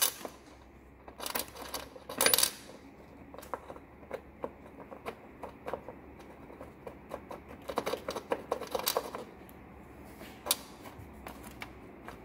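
Small metal washer and nut clinking as they are put onto the threaded stud of an LED rock light and spun down by hand: scattered sharp clinks, a few louder ones in the first couple of seconds and a quick run of them about eight seconds in.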